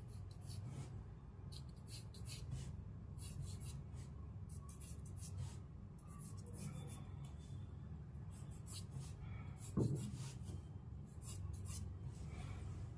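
Graphite pencil scratching on drawing paper in a series of short strokes as a straight guideline is drawn, over a steady low hum. A brief low thump about ten seconds in.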